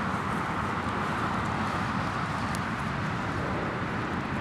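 Steady outdoor background noise, mostly the even hum of road traffic, with a few faint high ticks.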